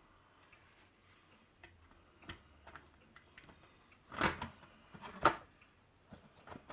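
Small plastic clicks and taps as the body shell of a model Class 121 railcar is handled and pressed back onto its chassis, with two sharper snaps about four and five seconds in.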